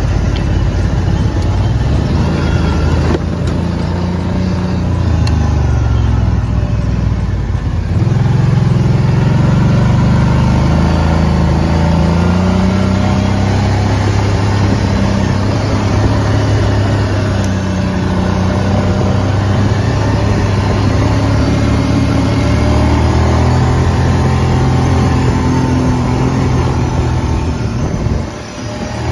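Kawasaki Brute Force ATV engine running while riding, its note rising and falling as the throttle is opened and eased. The level dips briefly near the end.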